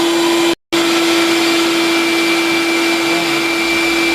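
Loud, steady whine of an electric motor with a rushing-air noise like a vacuum cleaner. It breaks off to silence for a moment about half a second in, then carries on unchanged.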